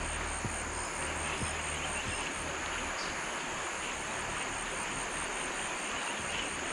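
Steady, even rushing noise with a low hum underneath that stops about two seconds in.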